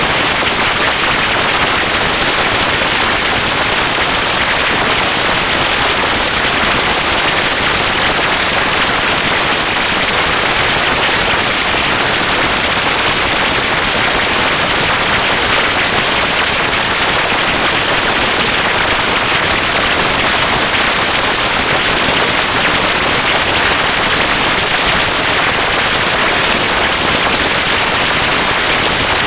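Continuous loud, harsh crackling noise with no clear pitch or pauses: a sound heavily distorted by stacked digital audio effects.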